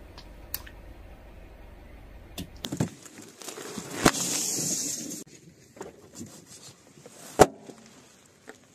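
Car tyre rolling over and bursting liquid-filled rubber gloves and balloons: small crackles, then two sharp pops, one about four seconds in and the louder near the end. The first pop is followed by about a second of hiss.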